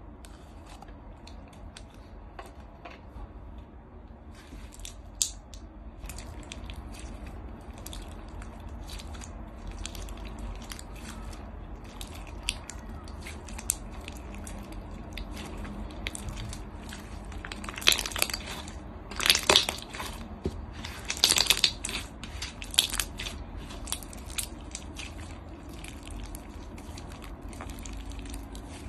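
Clear slime packed with small beads being squeezed, pressed and stretched by hand, giving a continuous run of small crackling crunches and pops as the beads are pressed through it. The crunching is loudest and densest about two-thirds of the way through.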